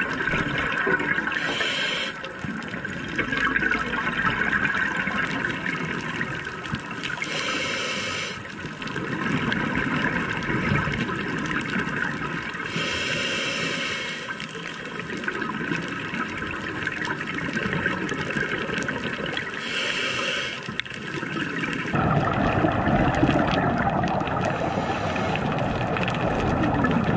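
Underwater audio from a dive camera: a steady muffled rush of water, with a brighter bubbling hiss surging about every six seconds. The sound shifts to a fuller, lower rush about 22 seconds in.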